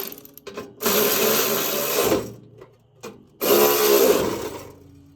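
Two bursts from a small power tool, each lasting a little over a second, with a short click between them.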